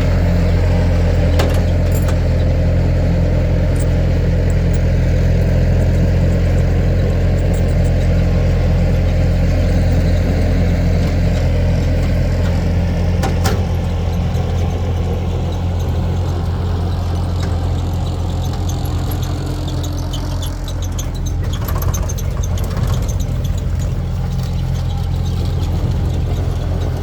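Truck engine running steadily at low speed, slowly towing another vehicle, with a couple of sharp clicks or knocks.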